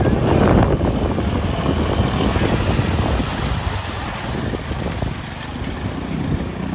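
Motorcycle engine running through a river crossing, with rushing water and wind buffeting the microphone as a loud, steady rumble.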